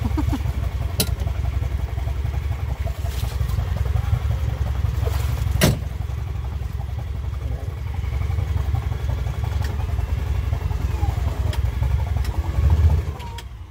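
Side-by-side UTV engines running with a steady low rumble, broken by a few sharp clicks and one louder knock about halfway through, and swelling briefly louder near the end.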